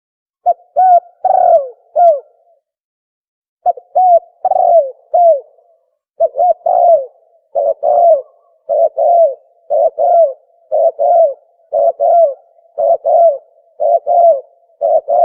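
Dove ('tukmo') cooing call from a hunting lure recording: short, low coos that rise and fall. The first two groups of notes start about half a second and three and a half seconds in, then a steady run of paired coos follows at about one pair a second.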